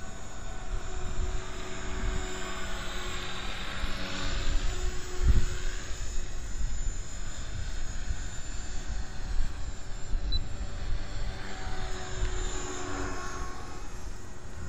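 HK450 electric RC helicopter in flight, its motor and rotor whining steadily, the pitch sliding up and down as it swings past. Wind rumbles on the microphone underneath, with a low bump about five seconds in.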